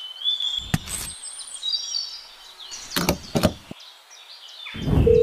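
Small clicks and knocks from handling the parts of a plastic toy tractor: one knock about a second in, two sharp clicks around three seconds, and a louder thump near the end. Faint high bird chirps run underneath.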